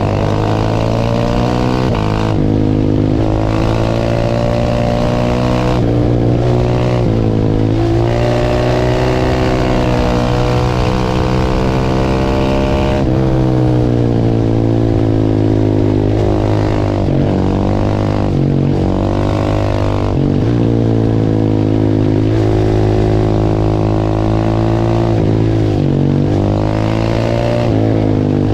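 Big single-cylinder supermoto engine (KTM/Husqvarna 690 LC4) running hard under way, its revs climbing and falling over and over with sudden drops every few seconds as it shifts and rolls off the throttle.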